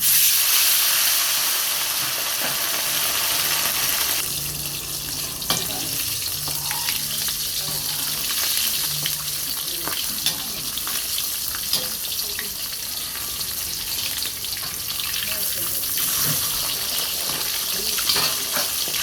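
Food frying in hot oil in a pan: a loud sizzle that flares up at the start and settles to a steady sizzle, with the occasional tap and scrape of a utensil stirring it.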